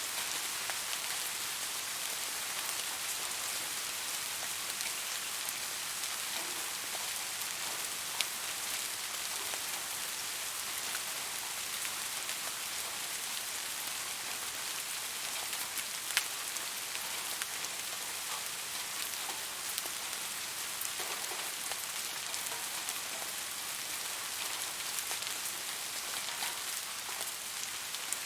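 Steady rain falling, an even hiss with scattered individual drops ticking out of it, two sharper drops standing out about eight and sixteen seconds in.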